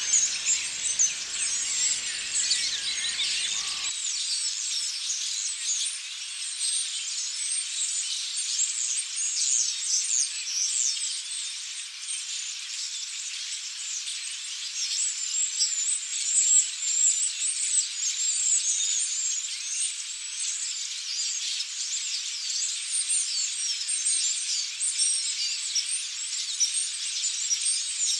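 Dense chorus of many small birds chirping and twittering, a continuous high-pitched tangle of quick overlapping calls.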